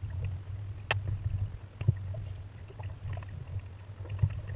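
Wind rumbling on the microphone of a small Pacer sailing dinghy under way, with water noise along the hull and a few sharp knocks from the boat, the clearest about a second in and another near two seconds.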